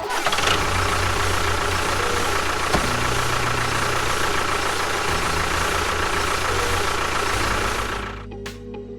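A small motor running steadily with a hiss, a faint whine and a low pulsing hum. It stops about eight seconds in.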